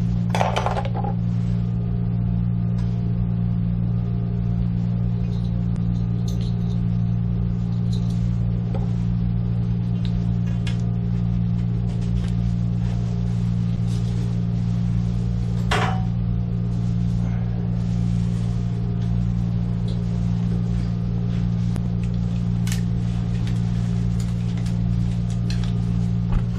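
Steady low mechanical hum, with a few short knocks or clicks: one about half a second in, one near the middle and one later on.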